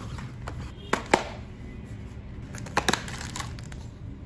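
Pocky snack packaging being handled: scattered sharp clicks and light crinkles of box and wrapper, the loudest click about a second in.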